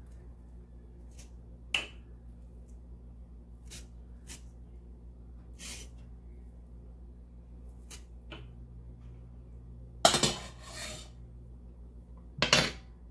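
Wire-mesh strainer and spoon knocking and scraping against a cooking pot as drained rice is shaken and scraped into it: scattered sharp clinks and knocks, the loudest about ten seconds in and again near the end, over a low steady hum.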